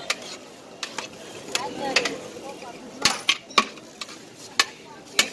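Steel serving plates scraping and clinking against large metal biryani pots as rice is scooped out, with about nine sharp, irregular clinks.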